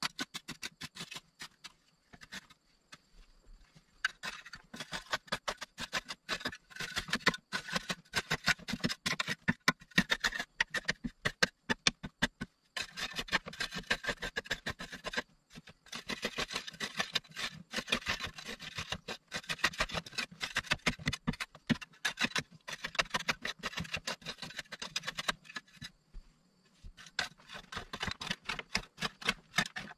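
A metal digging tool, a small hand hoe, scraping and chipping at a packed-earth wall in quick repeated strokes, several a second, with short pauses a few seconds in, near the middle and near the end.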